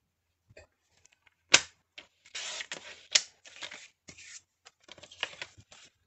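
Paper trimmer cutting cardstock: a sharp click about one and a half seconds in, then a short rasp of the blade through the card. After that come more clicks and paper sliding and rustling as the cut pieces are handled on the trimmer.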